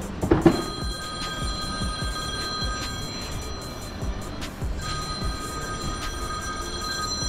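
Mobile phone ringtone ringing: two rings of steady electronic tones, each about two and a half seconds long, with a short gap between them. There is a sharp knock just before the first ring.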